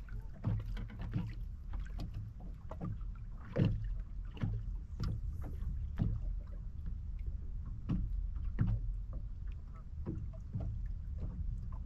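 Boat on open water: a steady low rumble with irregular sharp slaps and splashes of water against the hull, several a second.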